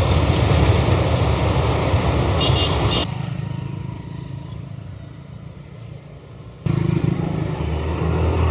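Street traffic noise with motorcycles and cars running past, heavy in the low end. It drops away suddenly about three seconds in and comes back loud near the end.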